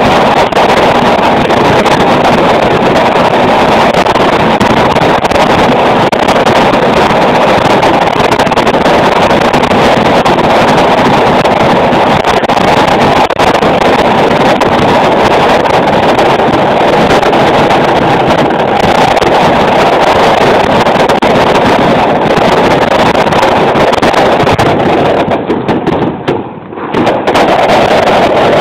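Dense, continuous barrage of exploding fireworks, very loud, the bursts running together into one steady clatter that eases briefly near the end.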